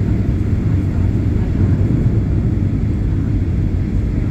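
Steady low rumble inside the cabin of a Boeing 737-800 taxiing: its CFM56-7B engines at taxi thrust and the airframe rolling along the taxiway.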